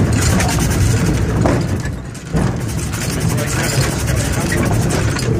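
Replica early steam locomotive Steam Elephant running along the track, its chimney exhaust puffing, with a steady clatter of knocks and clanks from its motion and the wagons, briefly quieter about two seconds in.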